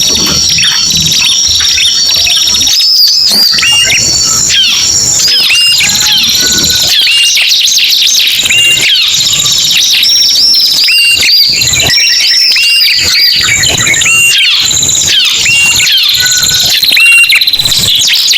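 Ciblek and prenjak, small Indonesian prinias, calling together as a bird-lure recording. It is a dense, loud, unbroken run of overlapping high chirps and rapid trills, with short hooked notes repeating among them.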